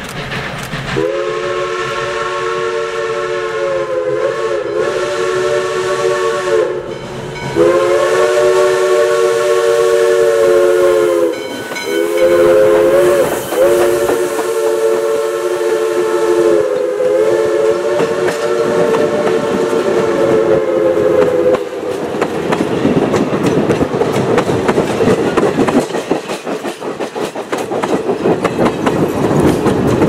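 Pennsylvania Railroad three-chime steam whistle on Western Maryland 1309, blown as long, long, short, long: the grade-crossing signal. The coaches then roll past close by, wheels clacking over the rail joints.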